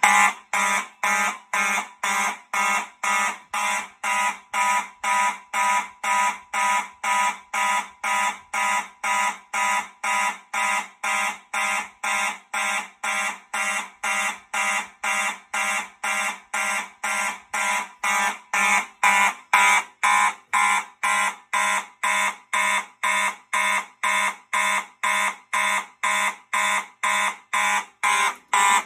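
Fire alarm horns pulsing in March Time coding, about two evenly spaced blasts a second, as the Fire-Lite MS-9600UDLS panel sounds a pull-station alarm. The horns are a Simplex 4903-9215 horn strobe and a Gentex GMS electromechanical horn strobe, sounding together.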